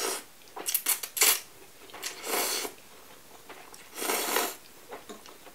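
Cutlery and dishes being handled: a few sharp clinks about a second in, and three short scraping sounds of about half a second each.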